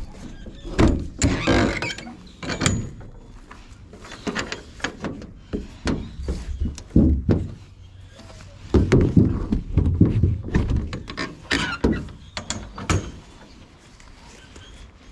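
An enclosed cargo trailer's door and metal latch hardware being worked by hand: a run of irregular knocks, thunks and clanks.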